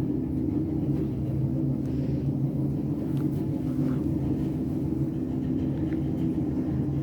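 High-speed traction elevator (rated 180 m/min) heard from inside the car while it travels: a steady rumble with a constant low hum.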